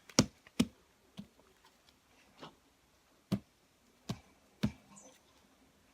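Slime being squeezed and poked, giving about seven sharp clicking pops at uneven intervals.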